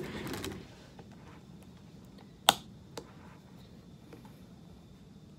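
Small objects handled on a desk: a brief rustle of paper wrapping at the start, then a sharp click about two and a half seconds in and a softer one half a second later.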